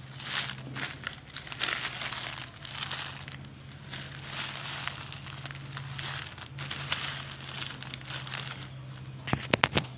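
Dried red chillies rustling and crackling as a hand stirs and turns them over in a heap, in repeated dry crinkly bursts. A quick run of four or five sharp clicks comes near the end, over a steady low hum.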